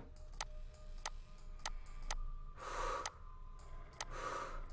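Horror-film sound design: a clock ticking steadily, overlaid twice by a slow, hoarse, heavy breath like Darth Vader's.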